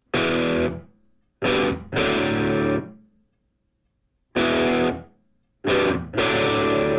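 Music: a distorted electric guitar strikes chords in short stop-start phrases, with sudden complete silences between them.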